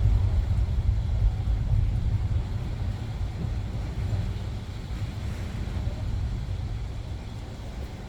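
Gusty thunderstorm wind buffeting the microphone: a low, irregular rumble that is strongest in the first couple of seconds and slowly eases off.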